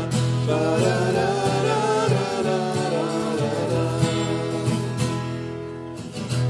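Acoustic band music: two acoustic guitars strumming chords under voices singing a gliding melody, the playing easing off in loudness near the end.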